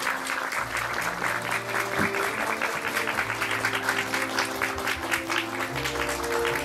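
Audience applauding, with music playing underneath: a dense patter of clapping over held musical notes.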